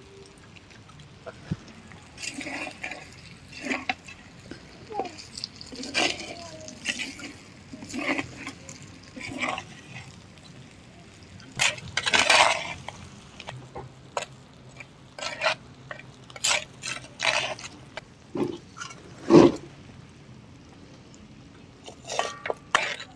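Flat metal spatula stirring and scraping chicken leg pieces through thick, wet gravy in a clay pot: irregular strokes of wet sloshing and metal-on-earthenware scraping, with the odd clink.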